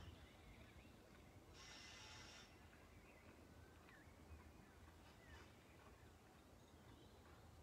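Near silence: faint background with scattered faint high chirps and a brief hiss about one and a half seconds in.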